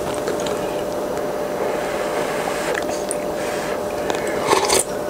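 Steady background hum and hiss, with one short slurp of soup from a spoon about four and a half seconds in.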